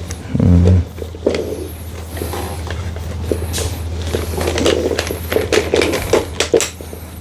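Handling of a lightweight camping chair during assembly: fabric rustling with scattered light clicks and knocks from its aluminium poles, over a steady low hum.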